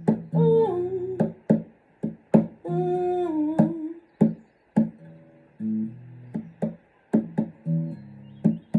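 Acoustic guitar played in a repeating picked pattern broken by sharp percussive hits, with two short wordless vocal slides in the first half.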